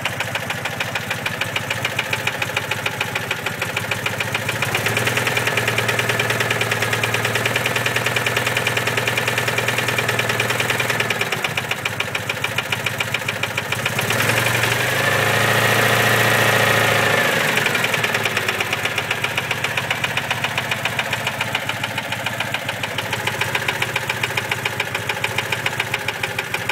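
Citroën 2CV's air-cooled flat-twin engine running with a quick, regular knocking tick, the abnormal engine noise in question. It idles, is held at higher revs twice for a few seconds each time, about five seconds in and again near the middle, and drops back to idle.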